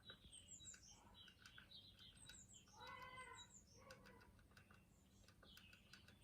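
Faint garden birdsong: small birds repeating high, falling chirps and short twitters, with a few light ticks and one lower call about three seconds in.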